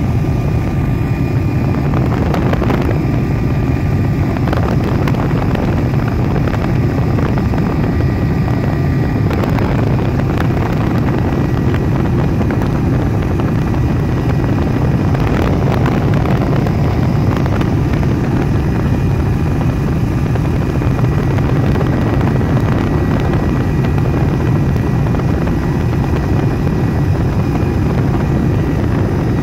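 Helicopter cabin noise in flight: the engine and rotor drone steadily and loudly, strongest in the low range, with a couple of faint steady high whines above it.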